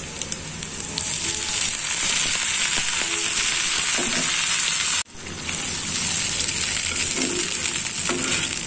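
Water added to onions and spices frying in hot oil in a karahi, setting off a loud, steady sizzle that starts about a second in. The sizzle drops out for an instant about five seconds in and resumes, and a spoon stirs through the pan near the end.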